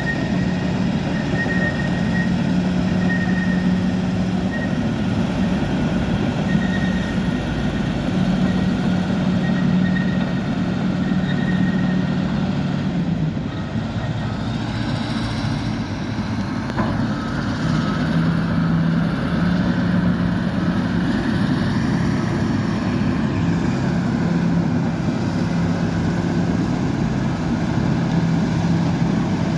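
Bulldozer's diesel engine running steadily, its pitch dropping slightly about halfway through.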